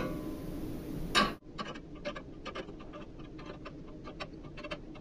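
A 9/16 wrench tightening nuts on the U-bolt of a steel mounting bracket: a run of quick, uneven metal clicks, several a second, with a louder knock about a second in.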